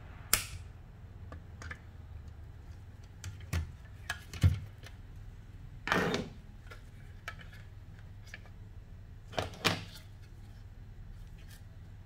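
Black plastic housing of a BMW E90 footwell module (FRM) being handled and opened to take the circuit board out: separate plastic clicks, knocks and scrapes a few seconds apart. The loudest is a dull thump about four and a half seconds in, there is a longer scrape around six seconds, and a quick pair of clicks comes near the end.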